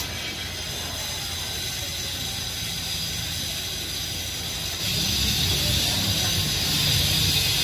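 Steady low rumble of passing traffic with a hiss over it, growing louder about five seconds in.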